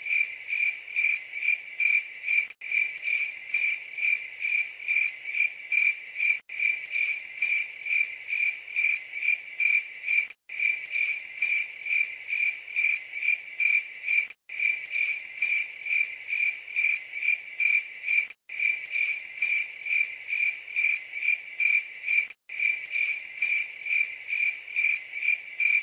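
Cricket-like chirping, a steady run of about four chirps a second with a brief break about every four seconds, as in a looped recording.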